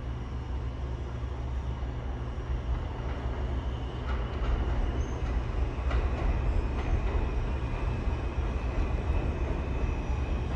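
New York City subway train on the IND 8th Avenue Line, running with a steady low rumble that grows louder about four seconds in. A few sharp clicks come through, and a high thin whine comes in near the end.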